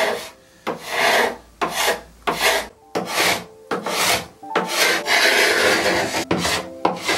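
Carbide paint scraper dragged in about ten quick rasping strokes across a painted wooden tabletop, with one longer pull near the end. The old paint is lifting off in chips down to the bare wood, so no paint stripper is needed.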